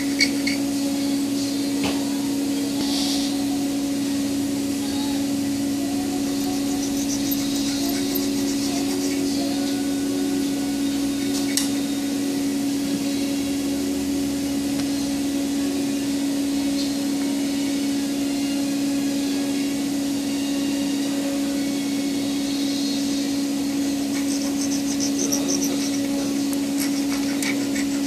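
Steady low machine hum, with faint scraping and a few light clicks as a utility-knife blade strips the sheath from a thin 1 mm wire.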